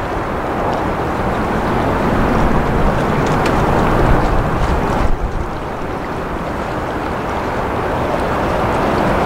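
Steady broad rumble of an Airbus A350-900's Rolls-Royce Trent XWB turbofans at takeoff thrust, growing slowly louder with a brief dip about halfway through.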